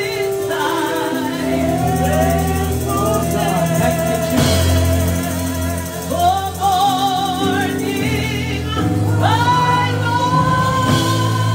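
Gospel praise song: a woman singing long held notes with vibrato into a microphone over sustained backing chords.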